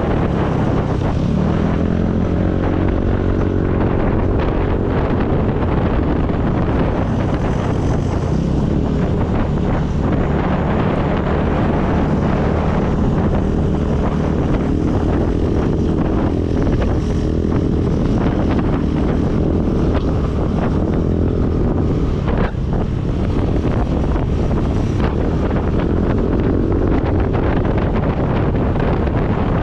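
Yamaha motor scooter engine running while riding at road speed, its pitch rising and falling a little with the throttle, under heavy wind noise on the microphone.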